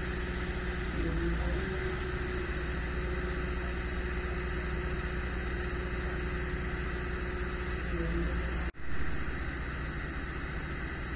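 Heavy diesel machinery at a track-laying site running at a steady idle, a constant engine hum. The sound cuts out for an instant near the end.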